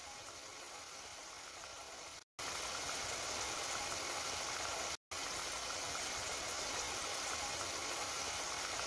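Potato cubes deep-frying in a pan of hot oil, a steady sizzling. It drops out briefly twice, about two and five seconds in, and is louder after the first break.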